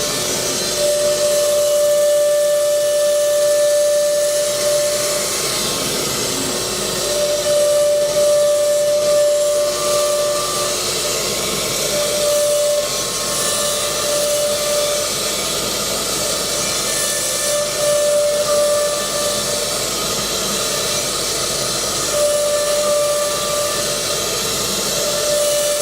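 High-speed spindles of a four-spindle CNC router running, with a steady hiss and a high whine that comes and goes several times, for a second to a few seconds each time.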